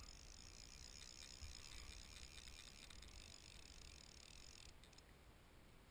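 Near silence: faint outdoor background with a steady high hiss that cuts off suddenly about three-quarters of the way through, over a faint low rumble.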